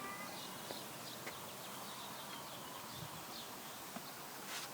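Faint outdoor background hiss with birds chirping faintly now and then.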